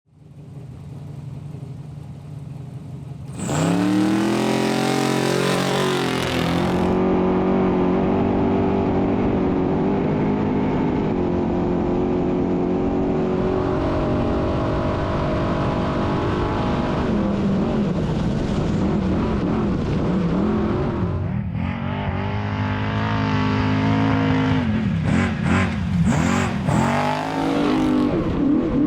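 Trophy truck engine running hard: it fades in, climbs sharply in revs about three and a half seconds in, holds steady, dips briefly about two-thirds of the way through, then revs up and down quickly near the end.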